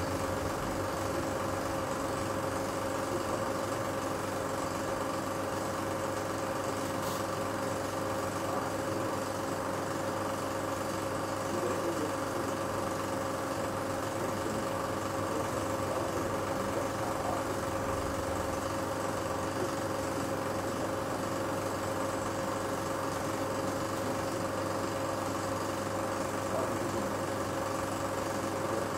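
16 mm film projector running, a constant mechanical hum with several steady tones that does not change.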